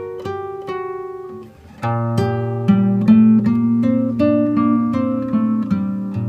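Background music on acoustic guitar, a run of picked single notes; about two seconds in, fuller lower notes come in and the music gets louder.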